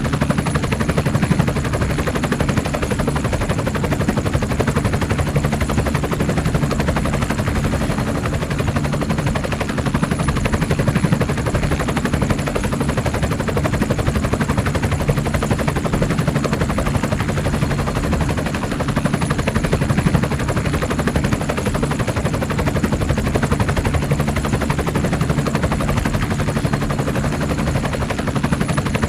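Mi-8 helicopter in flight: the main rotor chops fast and steadily over the even drone of its twin turboshaft engines, with a faint high whine.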